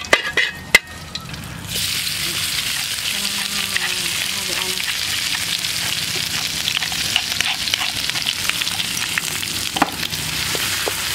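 A metal spatula clicks and scrapes in an aluminium wok of hot oil. About two seconds in, a loud sizzle starts suddenly as ground curry spice paste hits the hot oil, then frying runs steadily while the spatula stirs, with an occasional clink.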